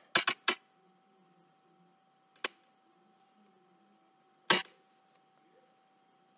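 A few short handling noises as hands press and move a small glued cardboard bookmark on a tabletop: three quick ones at the start, a faint one in the middle and a louder one about four and a half seconds in, over a faint steady hum.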